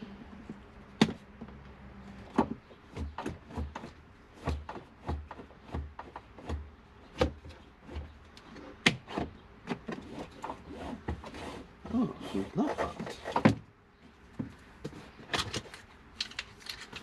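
Plastic interior pillar trim of a 2019 Buick Encore being pried and worked loose with a trim tool: irregular clicks, knocks and clip snaps, with a run of plastic squeaks about twelve seconds in.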